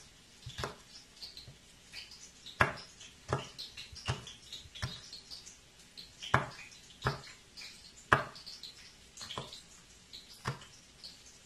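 Kitchen knife slicing garlic cloves on a plastic cutting board: the blade taps sharply against the board, about one or two cuts a second, in an uneven rhythm.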